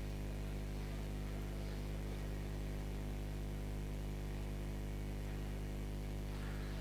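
Steady electrical mains hum with a stack of evenly spaced overtones and a faint hiss, with no ball strikes or other events.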